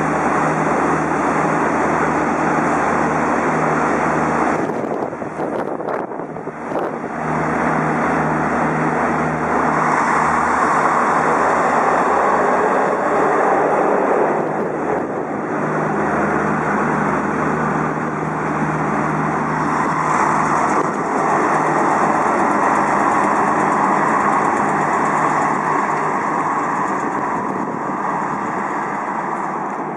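SNCF X 72500 diesel railcar pulling away from a stop, its diesel engines running hard as it accelerates past. The engine note drops out briefly about five seconds in, then picks up again, and the sound fades near the end as the train moves away.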